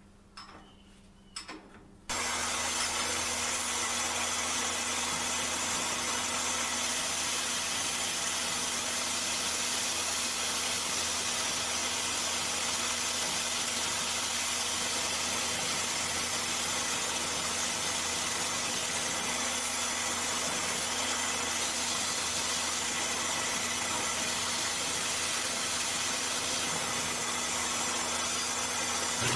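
A few light knocks of tools on the milling table, then, about two seconds in, a Ridgid wet/dry shop vacuum switches on and runs at a steady pitch, sucking up aluminium chips around the rotary table.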